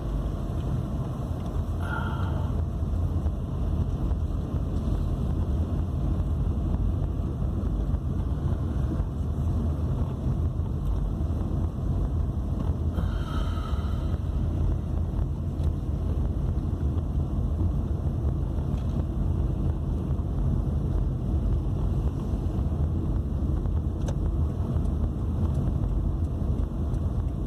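A car driving steadily: a constant low rumble of engine and road noise.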